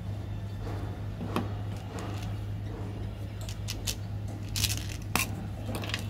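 Hands handling candy wrappers and plastic candy tubes: scattered crinkles and plastic clicks, the loudest near the end, over a steady low hum.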